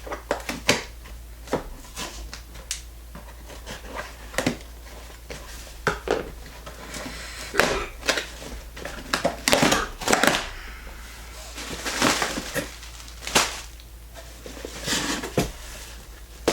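Scissors snipping and cutting through tape and cardboard on a box, with scraping, crinkling and clicks from handling the box, in irregular bursts that are busiest about halfway through.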